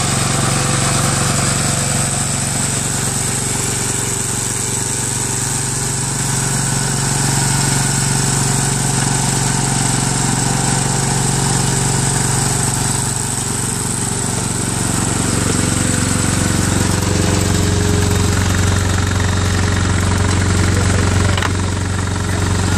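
Ammann AFW150G mini asphalt paver's engine running steadily as the machine works. Its note shifts and grows stronger about two-thirds of the way through.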